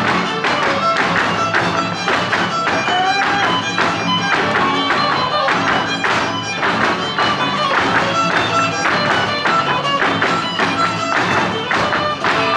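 Huasteco trio playing a huapango instrumental: a violin melody over strummed jarana and huapanguera. The dancers' zapateado footwork taps in rhythm on the stage.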